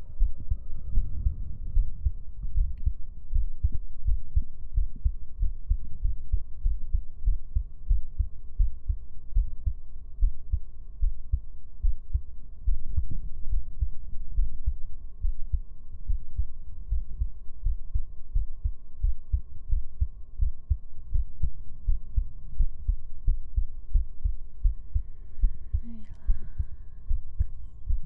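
Amplified heartbeat: quick, regular low thumps that go on steadily, over a faint steady hum. A faint brief rustle comes near the end.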